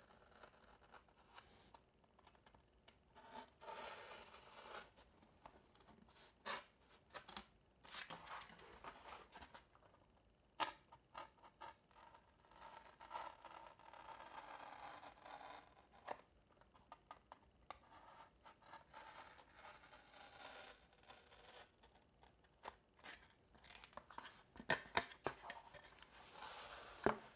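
Hobby knife cutting through paper-faced foam board in short, irregular scratchy strokes, with a few sharp clicks, quiet overall.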